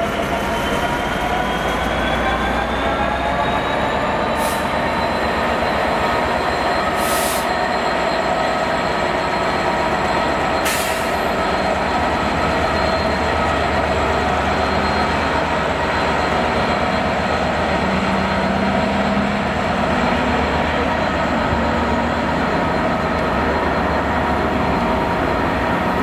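Class 66 diesel freight locomotive passing slowly at close range, hauling a train of steel-coil wagons. Its engine note climbs over the first few seconds and then holds steady over a rumble of wheels on rail, with three brief hisses in the first half.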